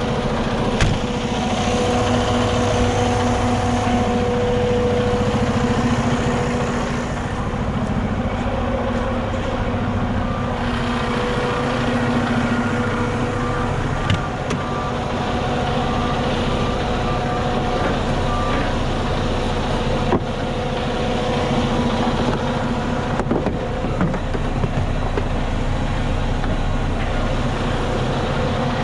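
Freightliner 122SD truck's diesel engine idling steadily, heard from inside the cab. Halfway through, a run of short, evenly spaced beeps sounds for several seconds, and a few light clicks come and go.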